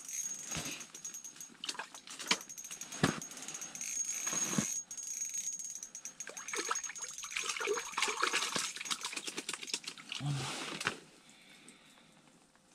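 Close handling noise: irregular clicks, knocks and rustling, with a faint steady high whine through the first half. It goes quiet about a second before the end.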